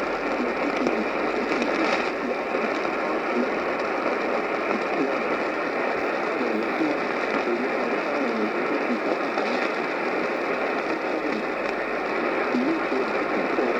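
Noisy AM radio reception: steady static hiss filling the narrow radio band, with a weak broadcast voice faintly showing through it.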